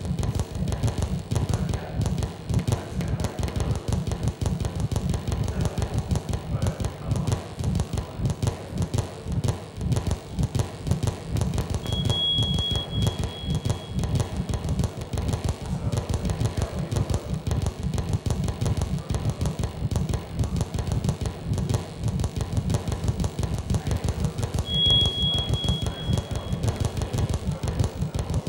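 Electronic noise soundtrack of an audio-visual installation, played over stereo speakers: a dense low rumble that flickers rapidly. Twice, about twelve seconds in and again about twenty-five seconds in, a thin high tone is held for about two seconds.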